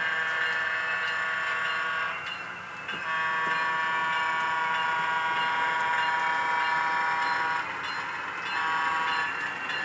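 Diesel switcher's air horn played by a Soundtraxx Tsunami sound decoder in an HO-scale Alco S-2 locomotive, through its small speaker: a long blast ending about two seconds in, a second long blast of about four and a half seconds, then a short one near the end, the pattern sounded for a grade crossing. A faint steady hum from the decoder's diesel engine sound runs underneath.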